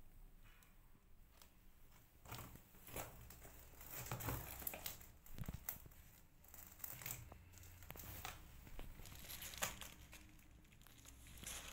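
Faint, irregular rustling, crinkling and scraping of a cardboard box as cats move about inside it, starting about two seconds in.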